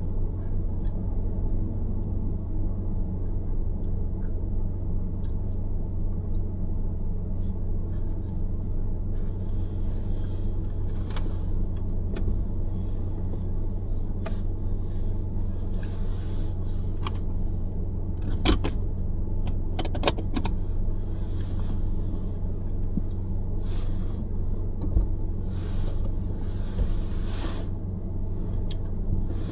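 A car driving along: a steady low rumble of road and engine noise, with a few short sharp clicks or knocks in the second half.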